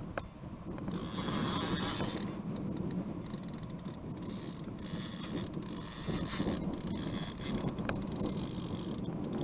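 Low, steady rumble of wind and river water around a small boat, with patches of water hiss that come and go and two light clicks.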